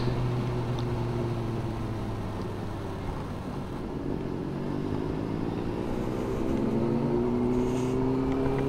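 Motorcycle engine running while riding; its pitch sags a little, then climbs steadily over the last few seconds as it speeds up.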